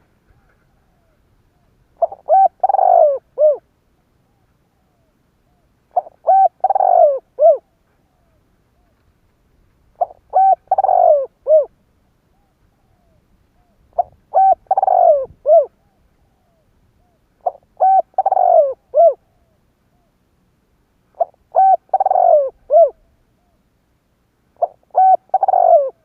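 Spotted dove cooing: its song phrase of several hoarse notes with a short final note, repeated seven times at steady intervals of about four seconds.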